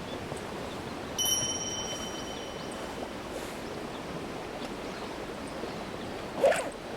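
Steady rushing background noise. About a second in, a single metallic ding rings out and fades over about two seconds, and a brief louder knock comes near the end.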